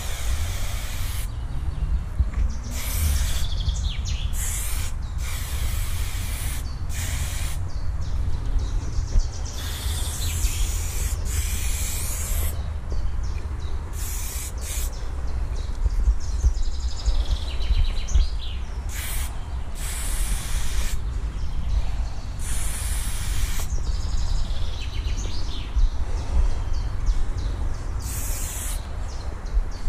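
Aerosol spray paint can hissing in repeated short bursts, stopping and starting as the paint goes on, with one longer burst of about three seconds near the middle.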